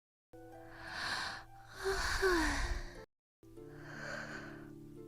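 A person yawning: breathy drawn-out breaths that end in a falling, voiced sigh, then after a sudden break another breathy yawn. Steady background tones run underneath.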